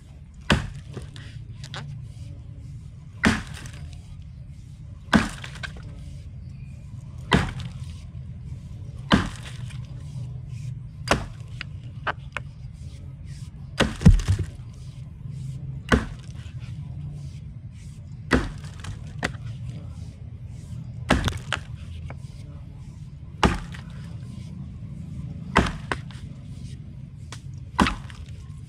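Felling axe chopping into wood: single heavy strikes, roughly one every two seconds, about thirteen in all, over a steady low rumble.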